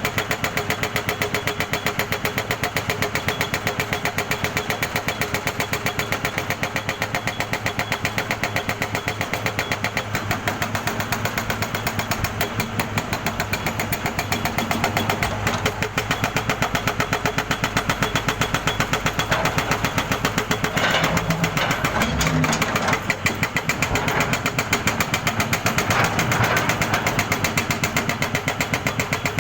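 Jackhammer running, a rapid, even stream of hammer blows that carries on steadily with a brief dip about three-quarters of the way through.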